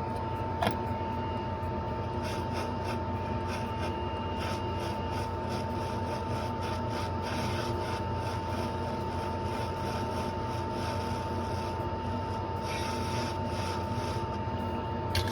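Faint rubbing and scraping on a laptop circuit board as excess cleaning liquid is dried off. Under it runs a steady hum with a constant whine from bench equipment, with a single click a little under a second in.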